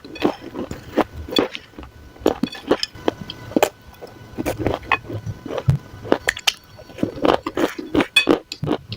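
Dry clay crumbs crunching and crackling, a quick irregular run of sharp crisp crunches.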